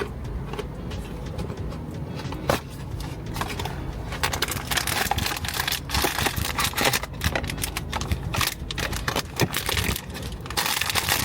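Blind-box packaging being worked open by hand: the crinkling, crackling and tearing of its plastic wrapping and card, a few scattered crackles at first and a busy stretch of crinkling from about four seconds in.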